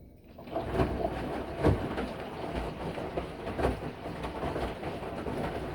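Samsung washing machine starting up and running: a steady rumble that begins about half a second in, with occasional knocks.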